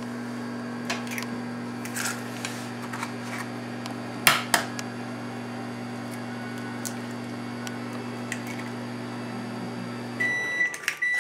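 An egg cracked into a well of flour, with a pair of sharp cracks about four seconds in and lighter taps and clicks around them. Under this runs a steady electrical hum, which stops near the end as a series of high beeps begins.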